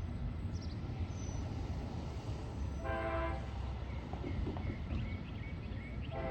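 Train air horn sounding in separate blasts: one ends at the start, a short blast comes about three seconds in, and another long blast begins near the end. Under the horn is a steady low rumble of the train.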